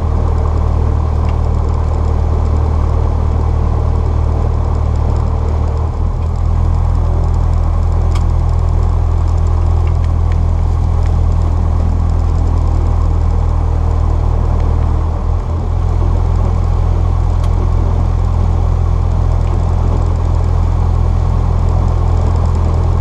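Cessna 172's piston engine and propeller running steadily at taxi power, heard from inside the cockpit as a constant low drone.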